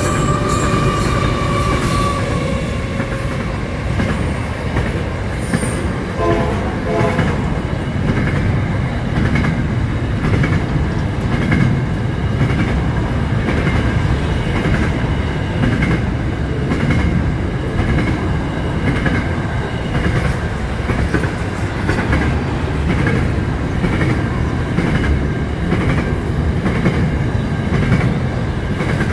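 Pacific National diesel freight train passing close by: the locomotive goes past at the start, then a long run of loaded freight wagons rumbles by with a steady, rhythmic clacking of wheels over the rail joints. A high held tone dies away in the first two seconds.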